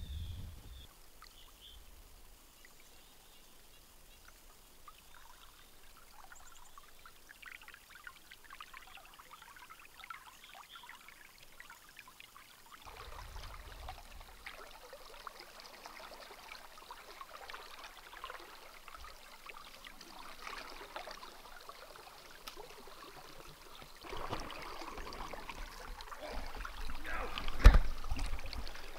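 Flowing river water trickling and rippling, faint at first and louder from about halfway on, with low rumbling in the last few seconds and one sharp thump near the end.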